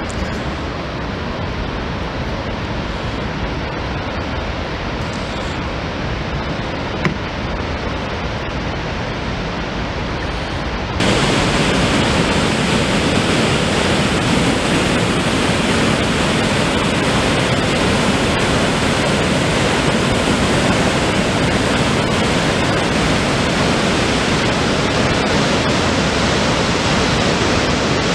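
Floodwater rushing down a dam's open spillway: a steady, heavy noise of pouring water with no tones in it. About eleven seconds in it becomes suddenly louder and brighter, then holds steady.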